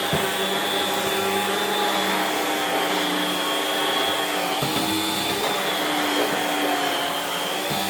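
Homemade central vacuum pulling air through its long hose and floor head while vacuuming carpet: a steady hissing rush of air with a faint high whine.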